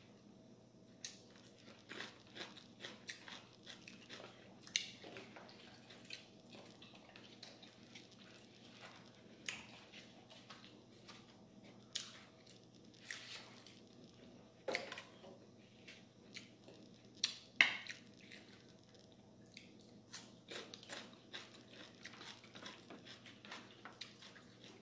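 Eating sounds: chewing, with irregular small clicks and taps throughout, the loudest a little past halfway, over a faint steady hum.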